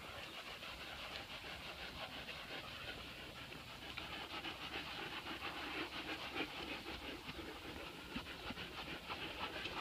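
Border collie panting quickly in a fast, even rhythm of soft breaths, the sound of a working dog breathing hard while herding.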